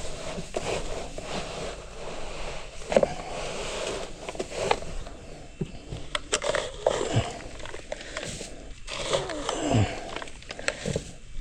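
An animal calling now and then, low calls that slide down in pitch, among scattered knocks and rustling.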